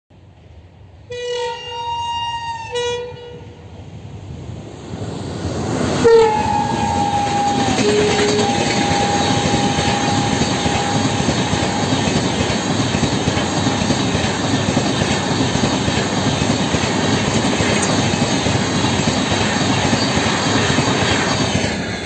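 A WAP-7 electric locomotive's horn sounds two short blasts as the train approaches, then a long shrill blast, slightly falling in pitch, as the locomotive passes close by at speed about six seconds in. After it comes the steady loud rush of the passenger coaches' wheels on the track.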